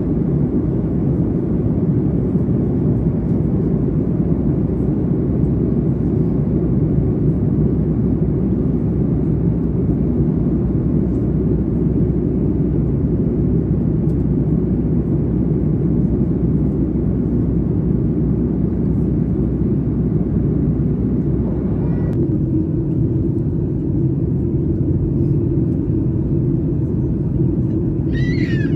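Steady rumble of jet engines and airflow heard inside an airliner cabin during the approach to landing, its tone shifting slightly about twenty-two seconds in.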